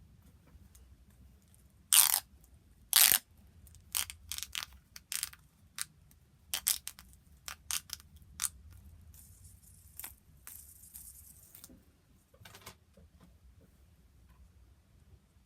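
Fidget toys being handled and played with: irregular clicks and crunches, the two loudest about two and three seconds in, and a short high hiss around ten seconds in.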